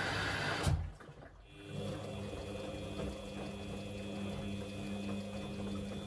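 Samsung front-loading washing machine running a wash cycle. Loud drum and motor noise cuts off abruptly with a click under a second in. After a short lull, a quieter steady motor hum with water swishing follows.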